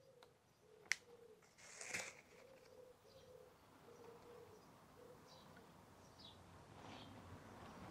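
Near silence, with a sharp click about a second in and a brief soft rustle about two seconds in, as the wet backing paper is peeled slowly off a vinyl decal.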